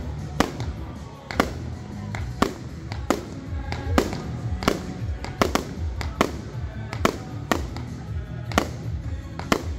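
Fireworks display: aerial shells bursting one after another, a sharp bang about every half second.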